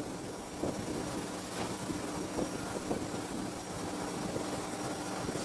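Repaired ceiling fan running on test: a steady motor hum with a rush of air, and a few faint ticks.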